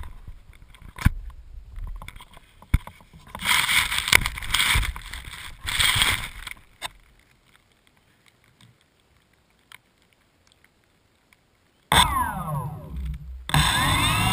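Knocks and handling noise for the first several seconds, then near quiet. About twelve seconds in, the homebuilt drone's motors and propellers start up, a many-pitched whine that slides down and then, near the end, rises and grows louder as they spin up.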